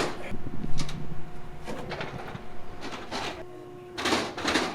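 Several short metal scrapes and clanks, spread over a few seconds, from steel Ferris wheel parts being handled and set in place, over a steady hum.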